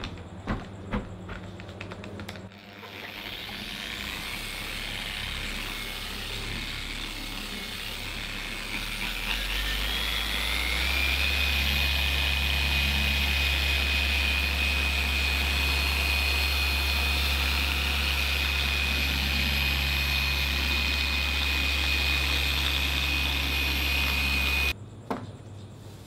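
Electric car polisher with a foam pad running on a car's painted bonnet. A few clicks as it is set on the panel, then the motor runs from about three seconds in, speeds up with a rising whine around ten seconds, holds steady, and cuts off suddenly about a second before the end.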